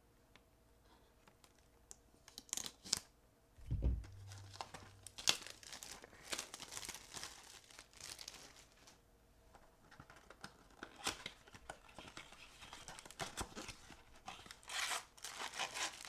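Plastic wrapping and a cardboard trading-card box being handled and torn open, crinkling and tearing in irregular bursts, with a dull thump about four seconds in.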